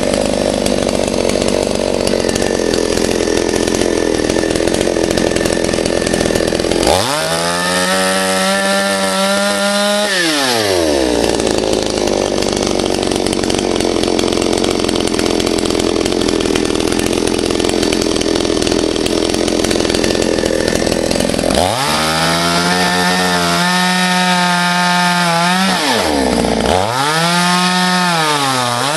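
Chainsaw running steadily in a cut. Three times it revs up to a high, clear whine, holds it for a few seconds and drops back: about seven seconds in, again around twenty-two seconds, and once more near the end.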